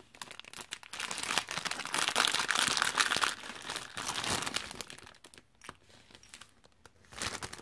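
Plastic packaging crinkling and rustling as small plastic jars of nail glitter are pulled out of it, densest for the first three seconds, then a few separate light clicks as the jars are set down on the table.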